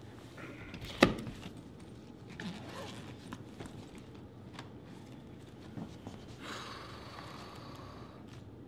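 A quiet room with one sharp knock about a second in, then small scattered ticks and shuffles and a soft rustle lasting about a second and a half near the end.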